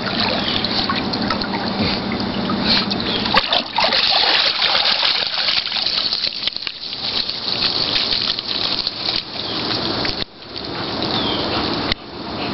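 Pool water splashing and trickling steadily as a wet German shepherd swims to the pool steps and climbs out.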